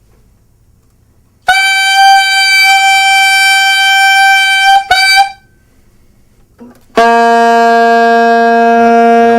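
Saxophone playing long held tones. A higher, middle-register note starts about a second and a half in and is held for about three seconds, with a short re-attack just after. After a pause, a low-register note starts near the end and keeps sounding.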